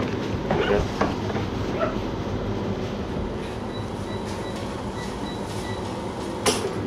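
Steady low mechanical rumble and hum, with a few clicks about half a second in, faint repeated high beeps around the middle, and one sharp knock near the end.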